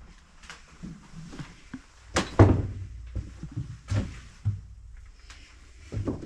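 Irregular knocks, thumps and scuffs from people clambering through a shelter tunnel, the loudest a heavy thump about two seconds in.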